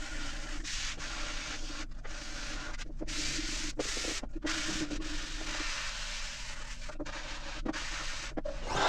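Sandpaper rubbing on wood in steady strokes, broken by several brief pauses.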